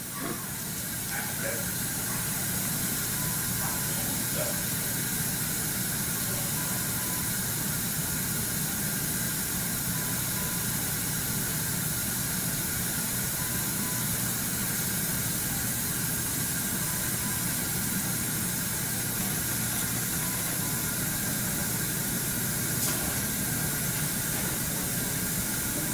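Dental suction hissing steadily, with a low hum beneath it.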